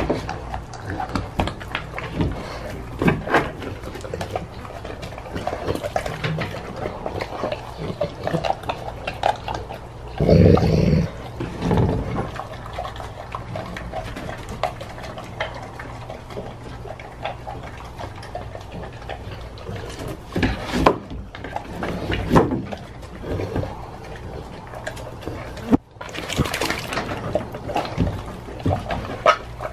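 Pitbull-mix dog chewing and licking raw pork skin: a steady run of wet smacking, slurping and tearing clicks, with a few louder bursts, the strongest about a third of the way in.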